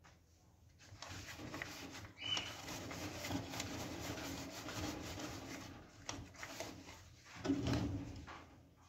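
Steel-wool pad (Bombril) scrubbing greasy stove metal: an irregular rasping scrub that swells and eases in strokes, with a short squeak about two seconds in and a louder stretch near the end.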